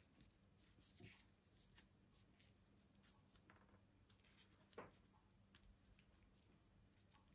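Near silence with scattered faint ticks and small crackles of hands peeling the slippery skin off bolete mushroom caps, the loudest a soft snap a little before five seconds in.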